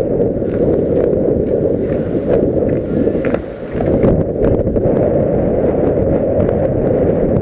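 Wind buffeting the microphone: a loud, steady rumble that eases briefly about three and a half seconds in.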